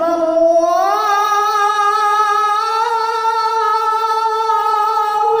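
A boy's voice chanting the adzan, the Islamic call to prayer, holding one long drawn-out note that climbs in pitch about a second in and then stays steady.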